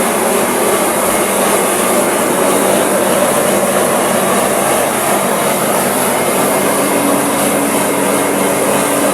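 Steady, continuous machinery noise with a faint hum, unbroken throughout.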